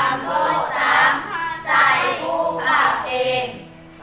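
Young female voices chanting a Thai verse in a sung, drawn-out recitation melody, in phrases of about a second each.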